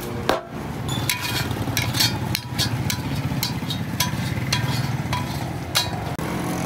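Metal spatula scraping and knocking against a cooking pan while a thick coconut mixture is stirred: irregular sharp clinks about once or twice a second over a steady low rumble.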